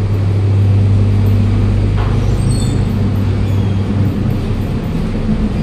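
A motor vehicle's engine running nearby: a steady low hum that eases off after about three and a half seconds.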